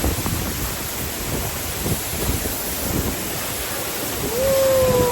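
Steady rushing of a waterfall, with wind buffeting the microphone. Near the end a single long call is heard over it, holding one note that slides slightly down.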